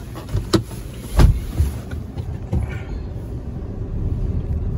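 Car cabin noise: an engine and road rumble heard from inside the car as it gets moving on a snowy road, building gradually in level. Two short thumps come in the first second and a half.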